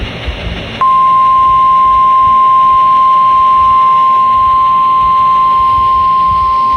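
NOAA Weather Radio warning alarm tone (1050 Hz) from a weather radio's speaker: one loud, steady, single-pitch tone that starts suddenly about a second in, after faint radio hiss. It sounds as part of the weekly test of the alarm.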